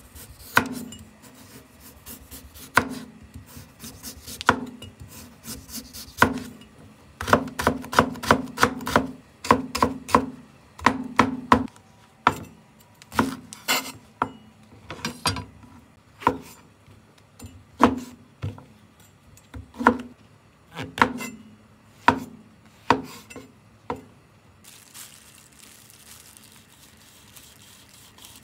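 Kitchen knife chopping through carrot and enoki mushrooms onto a wooden cutting board: a string of sharp knocks of the blade striking the board, with a quick run of chops a few seconds in. The knocks stop near the end, leaving only faint soft cutting.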